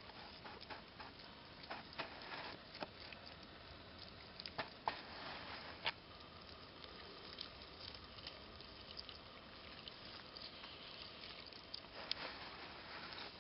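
Faint rustling with scattered small clicks and ticks over a quiet outdoor hiss.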